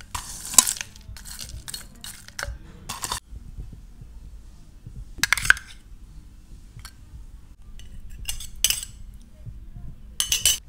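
Kitchenware clinking: a ceramic plate and a steel spoon knocking against an earthenware bowl as dry broken puris are tipped in and chutney is spooned over, in a handful of separate clinks and rattles.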